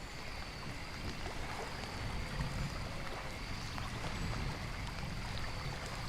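Steady rain-and-nature background ambience: an even hiss of falling water with a low rumble underneath.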